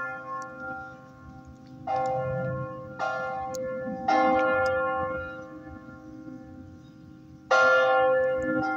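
Church tower bells ringing: four separate strikes, three about a second apart and a fourth after a longer pause, each one ringing on and slowly fading.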